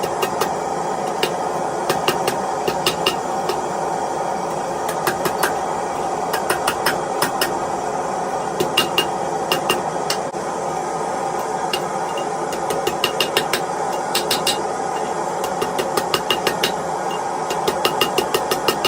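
Blacksmith's hammer forging steel on an anvil: irregular runs of quick blows, each with a short high ring, over a steady rushing noise.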